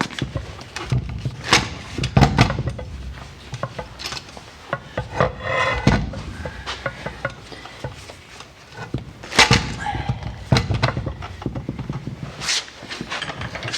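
Irregular knocks, clunks and scraping of a transmission being moved and slid onto the back of an engine, its input shaft going toward the pilot bearing.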